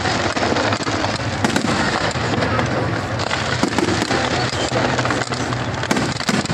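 Fireworks display: a dense, unbroken run of cracks and bangs, many shells bursting close together over a constant crackling haze.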